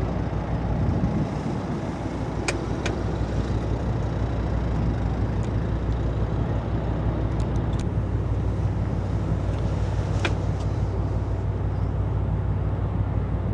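Steady low engine rumble with a constant low hum, broken by a few short sharp clicks.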